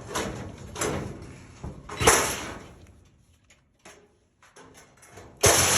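Sheet-metal knocks and scrapes, the loudest about two seconds in, as the old furnace coil casing is worked loose from the plenum. Near the end a power tool starts up suddenly and runs steadily.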